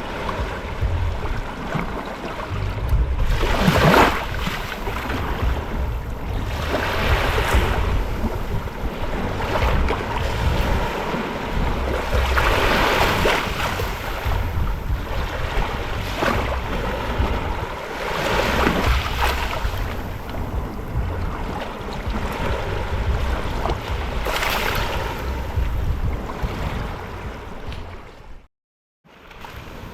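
Small ocean waves breaking and washing up the beach, a fresh surge every few seconds, with wind buffeting the microphone as a steady low rumble. The sound cuts out for about half a second near the end.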